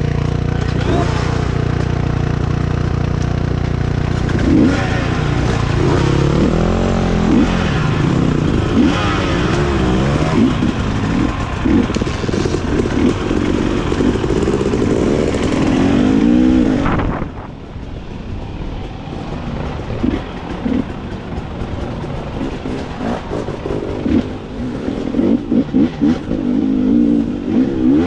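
Dirt bike engines idle steadily, then rise and fall in pitch as the riders throttle up and ride off along a rough trail. About two-thirds in, the sound drops off suddenly and then comes back quieter, with short throttle blips. It grows louder and revs again near the end.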